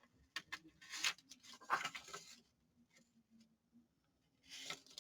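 Quiet paper handling: a few short rustles and soft taps of paper pieces being moved about, with a brief rustle again near the end.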